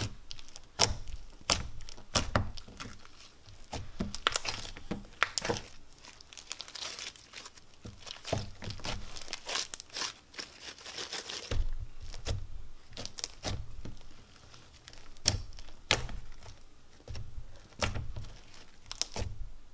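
Green textured slime being stretched, pressed and squeezed by hand, giving off irregular crinkly, crackling clicks and pops.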